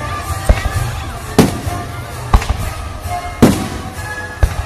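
Aerial firework shells bursting, five sharp booms about a second apart.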